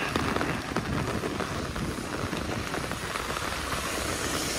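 Steady rain falling on wet pavement, a constant hiss. Near the end a car's tyres swish along the wet road.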